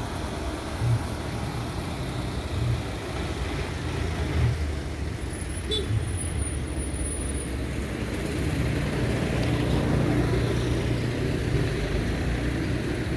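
A heavy vehicle's engine running steadily, with a low pulse about every second and a half at first, then a steadier and slightly louder run in the second half.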